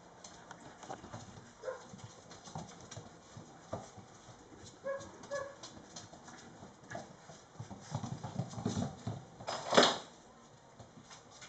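Mastiff puppies' claws and paws clicking and scuffling on a hardwood floor as they play, in scattered irregular taps. There are two short high squeaks about five seconds in, and a brief louder rush of noise near the end.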